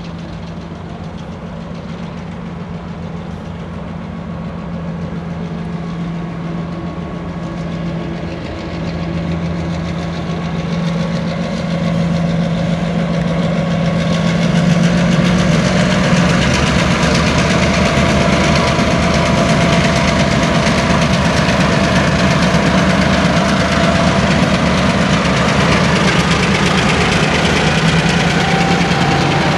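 Two diesel switcher locomotives running at low throttle as they haul a train of covered hoppers, with a steady low engine hum. It grows louder over the first half as they approach, then holds steady as they pass close by.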